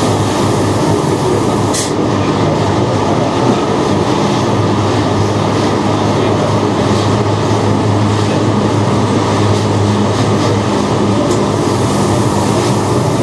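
Electric rack-railway train running steadily, heard from the driver's cab: a continuous rumble with a low hum that grows stronger partway through, and a few light clicks.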